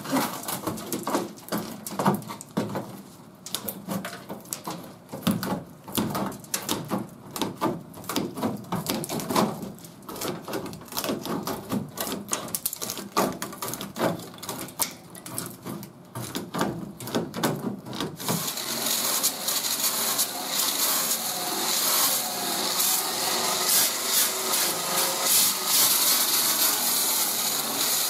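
Aviation tin snips cutting through rusted car sheet metal, a run of sharp snips and crunching cuts. About 18 seconds in, a disc grinder with a resin fiber disc starts grinding the bare metal with a steady whir.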